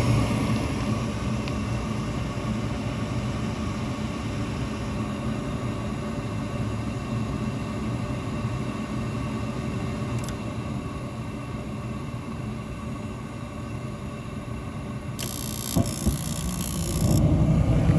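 Steady low mechanical rumble, with a short high hiss and a few sharp clicks near the end.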